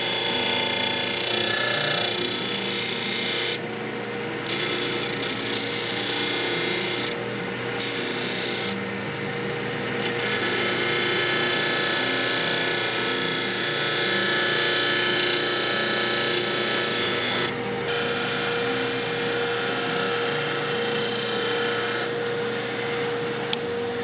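Belt grinder running with a metal knife liner pressed against the abrasive belt to shape it. A steady grinding hiss rides over the motor's hum and breaks off briefly several times as the piece is lifted off the belt.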